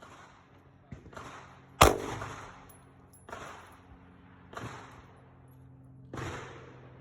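Gunshots at a shooting range: one loud, close shot about two seconds in, and several quieter shots spaced a second or so apart, each with an echoing tail.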